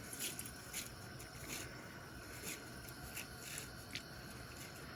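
Dry pasta noodles being snapped and handled over a pot: a scattered string of faint, crisp cracks and ticks at irregular intervals.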